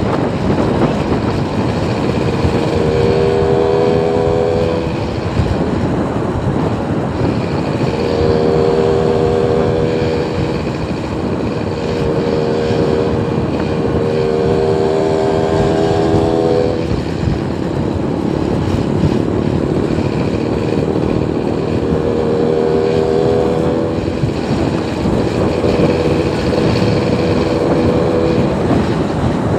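Steady motor-vehicle traffic noise. A droning engine tone swells in and fades out several times, each spell lasting about two seconds.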